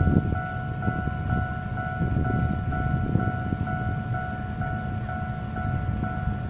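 Railway level-crossing warning alarm sounding a repeated electronic tone, about two beeps a second: the signal that a train is approaching and the crossing is closed. A steady low rumble lies underneath.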